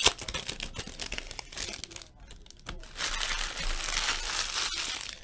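Foil wrapper of a trading-card pack crinkling and tearing as it is opened by hand, in scattered crackles with a sharp click at the start and a denser run of crinkling from about three seconds in.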